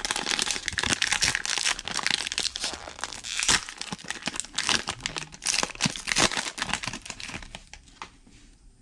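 Plastic wrapper of a trading-card value pack being torn open and crinkled by hand: a dense run of crackling and tearing that thins out near the end.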